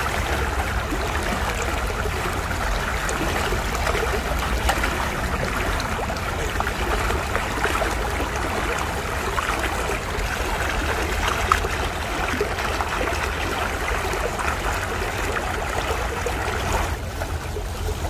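Small rocky creek running over stones and boulders: a steady rush and trickle of flowing water.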